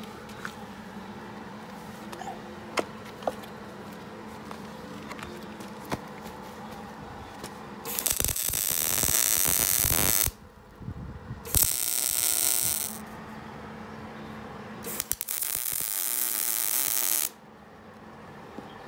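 Wire-feed (MIG) welder arc crackling in three bursts of about two seconds each, starting about eight seconds in, as steel filler stock is welded into a gap in a steel frame. Before the welding there is a steady low hum and a few light clicks.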